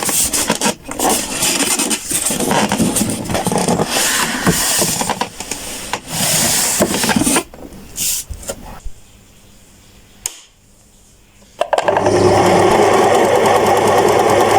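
An electric sewing machine starts running about twelve seconds in, with a steady, even motor hum. It is preceded by several seconds of loud, irregular noise of unclear source, then a quieter stretch.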